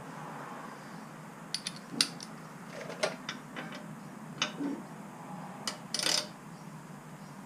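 Hand ratchet being worked on bolts to check how tight they are: irregular metallic clicks and clinks, with a short rasp of rapid clicking about six seconds in.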